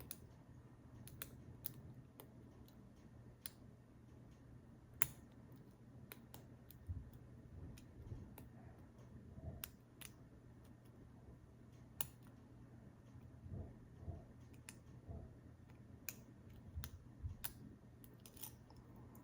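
Lock pick and tension wrench working inside a PacLock 90A-Pro padlock: faint, irregular metallic clicks, a few seconds apart, with some soft knocks from handling the lock.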